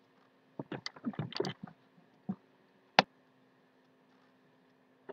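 Eating sounds: a fork clicking and scraping against a plate and mouth smacks, a quick cluster of small clicks about a second in and a single sharp click about three seconds in.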